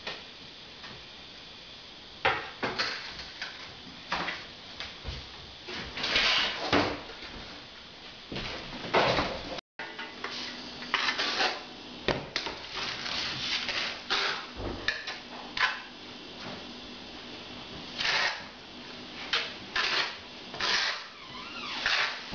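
Repeated scraping strokes. First a hand-held block is rubbed over a wall. Then, after a break, a steel notched trowel scrapes through tile adhesive as it is spread over the back of a tile, with irregular strokes a second or two apart.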